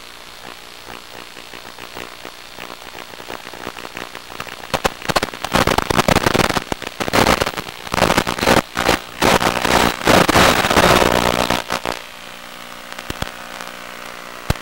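FPV radio-controlled plane coming down to land in tall grass: a steady low hum from the onboard audio, then loud, irregular crackling that lasts about seven seconds from around five seconds in, before it settles back to the hum near the end.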